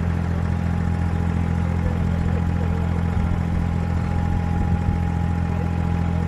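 A steady low engine drone with a faint thin whine above it.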